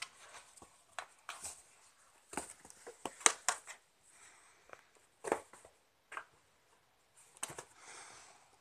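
Irregular taps, knocks and scratches on cardboard as a kitten paws through holes in a long cardboard box, batting at the ball inside, with a short rustle near the end.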